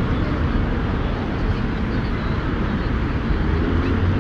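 Steady city street ambience, mostly the rumble and hiss of passing road traffic.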